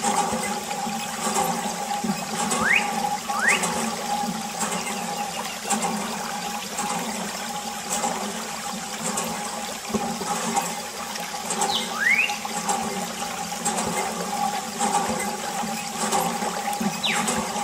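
Water running steadily from a thin plastic tube and splashing onto a sand-caked toy tractor and trailer, with a few short rising and falling whistles.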